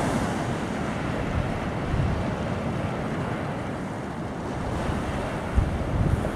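Sea surf breaking and washing over a pebble beach, with wind buffeting the microphone in low, uneven gusts, strongest near the end.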